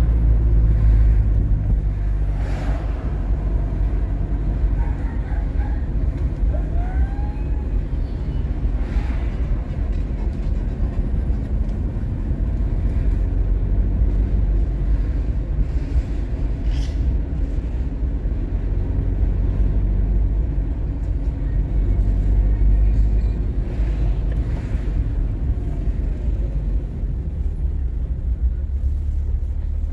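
Street ambience dominated by a steady low rumble of running vehicle engines, with a few short sharper sounds over it.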